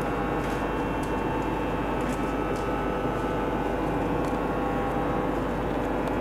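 Steady machinery hum and hiss with several held tones, even in level throughout, with a few faint ticks now and then.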